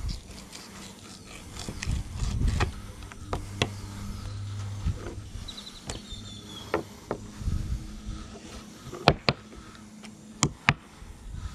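Fillet knife tapping and scraping on a wooden cutting board as fish is filleted by hand, with scattered clicks and a few sharp knocks near the end.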